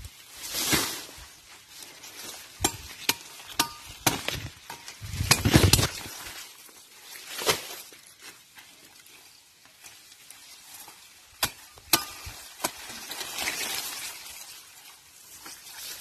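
Rustling of corn leaves and tall grass as the plants are handled and pushed through, with scattered sharp snaps of plant stalks breaking. A heavier rustle comes about five seconds in.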